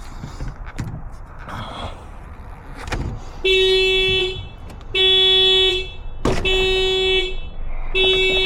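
A car horn sounding in repeated blasts, each just under a second long and about one every second and a half, starting about three and a half seconds in: the car alarm set off as the locked car is opened without its key. Before the horn starts there are a few clicks and knocks.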